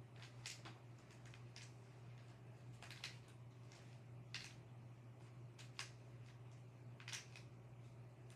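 Faint plastic clicks and swishes of a Rubik's cube being turned by hand, one every second or so, over a steady low hum.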